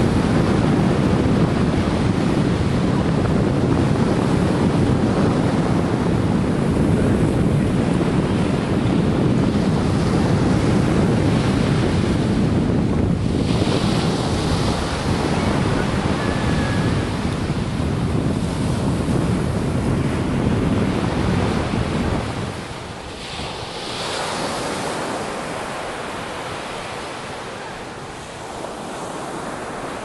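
Strong wind buffeting the microphone over waves breaking and washing up a sand beach. The wind rumble drops away about two-thirds of the way through, leaving the surf quieter, with hissing washes of water.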